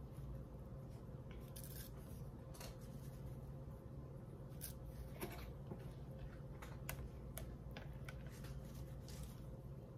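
Quiet handling sounds: scattered light clicks and knocks as a stick blender is worked through soap oils and oats in a plastic jug, over a faint steady hum.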